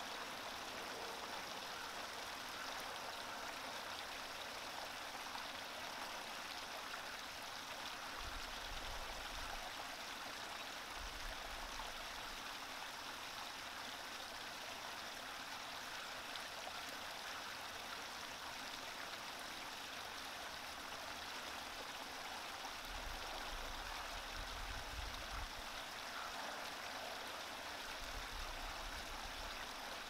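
Shallow creek running over stones, a steady babble of water from a small riffle.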